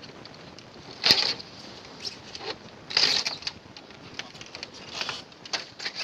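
Metal being struck and scraped by hand while a refrigerator is broken up: two louder crunching strikes about a second and three seconds in, with light ticks and rattles between.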